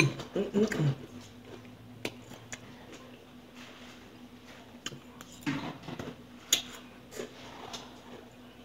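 Eating at a table: a few light clicks and taps of a utensil on a food container, with brief murmured voice sounds about the start and again around five and a half seconds in.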